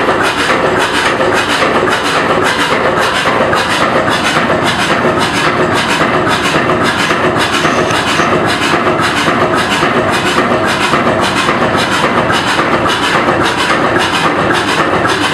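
A 1925 two-cylinder Brons slow-running marine engine of 40 hp, heard up close in a tugboat's engine room, running steadily. Its valve gear and combustion give an even, loud clatter of about three to four beats a second.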